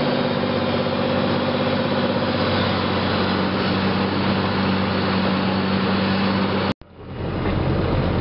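Loud, steady drone of a light aircraft's engine and propeller. It cuts off abruptly near the end, and a similar engine noise fades back in.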